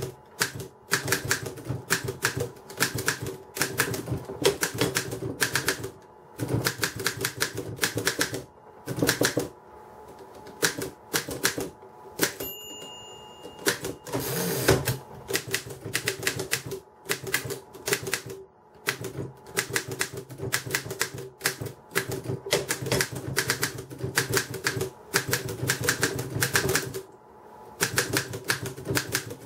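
Continental typewriter being typed on: runs of sharp key strikes at several per second, broken by short pauses. About halfway there is a brief ringing tone, then a longer noisy stroke, typical of the margin bell and the carriage return.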